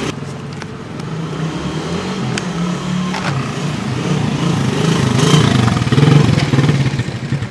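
Motor scooter with two riders approaching, its engine growing louder to a peak about six seconds in, then fading as it slows.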